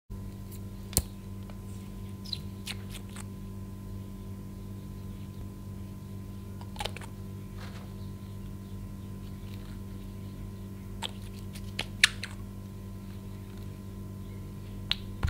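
Scattered small sharp clicks and taps from a glass nail polish bottle and its brush cap being handled while polish is brushed onto clear slime, over a steady low electrical hum. The loudest clicks come about a second in and about twelve seconds in.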